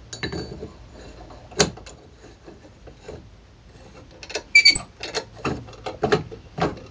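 Screw of a cast C-clamp being cranked down by its sliding T-handle, to force off the clamp's split end: scattered metal clicks and clinks. There is a ringing clink about four and a half seconds in, then clicks about three a second near the end.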